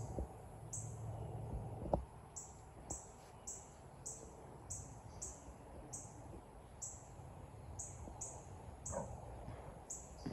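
High, short chirps repeating about twice a second, each dropping a little in pitch, over a steady high-pitched whine and low background noise. One sharp knock about two seconds in.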